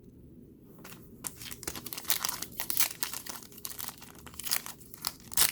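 Plastic wrapper of a trading card pack being torn open and crinkled, starting about a second in and loudest near the end.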